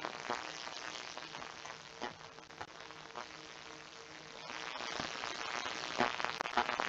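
Computer keyboard typing: scattered single keystroke clicks over a steady background hiss that grows louder about two-thirds of the way in.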